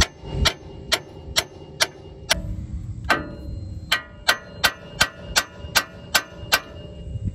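A claw hammer striking the steel front steering knuckle of a Ford Raptor about fifteen times, roughly two blows a second with a brief pause near the middle, each blow a sharp metallic clang with ringing. The blows are knocking the stuck upper ball joint's tapered stud loose from the knuckle.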